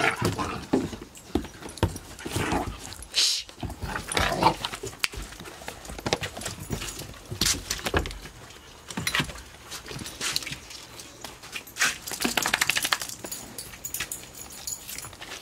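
Puppies play-fighting: a boxer puppy and another puppy scuffling, with short dog vocal noises and irregular clicks and scrapes of paws and claws on wooden decking.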